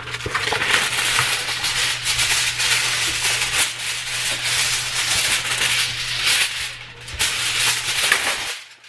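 Aluminium foil being pulled from its box and crinkled: a continuous crackling rustle that eases off briefly about seven seconds in, then starts again and stops just before the end.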